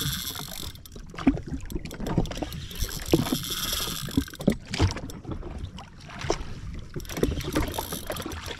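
Small waves slapping and knocking irregularly against the hull of a drifting jet ski, with patches of splashy hiss.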